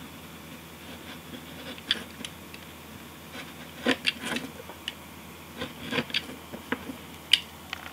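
Paper being trimmed and worked by hand: scattered short scrapes and clicks a second or two apart, the sharpest click about seven seconds in.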